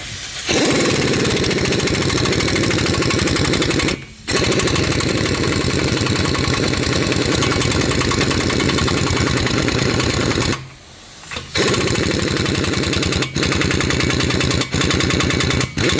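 Impact wrench hammering as it runs a large rear hub nut down tight, in three long bursts broken by short pauses about four and eleven seconds in.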